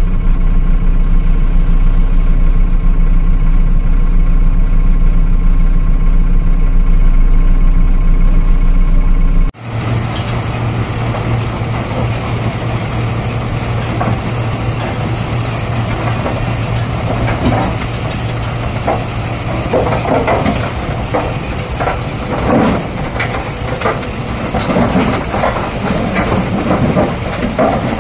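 Tata Prima tipper truck's diesel engine running steadily. After an abrupt cut about a third of the way in, the engine runs with its tipper body raised, and irregular knocks and clatter of rock grow busier from about halfway.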